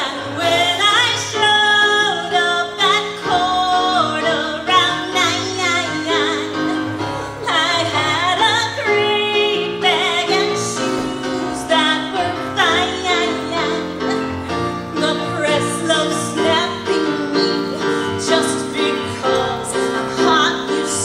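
A woman singing live into a stage microphone over musical accompaniment, her held notes wavering with vibrato.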